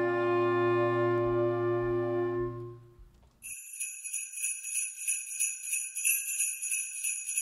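A clarinet choir holds a long chord that fades away over about three seconds. After a brief silence, jingle bells are shaken in a steady rhythm.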